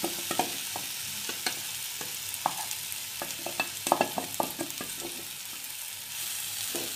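Masala-marinated mushroom pieces sizzling in hot oil on a cast-iron tawa as they are scraped in from a bowl with a spoon. A run of sharp clicks and taps of the spoon against the bowl and pan sits over the sizzle, busiest about four seconds in.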